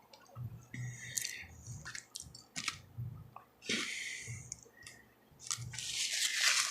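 Close-miked mouth sounds of eating: wet chewing and lip smacks with many short clicks and a few brief noisy bursts.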